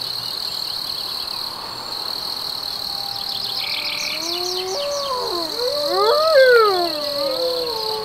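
Crickets chirring steadily and high. From about five seconds in, a chorus of wolves howls, several voices gliding up and down across one another.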